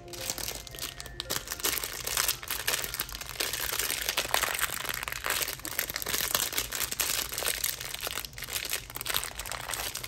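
Thin clear plastic wrapper bag around a squishy toy crinkling and crackling continuously as hands handle and tug at it.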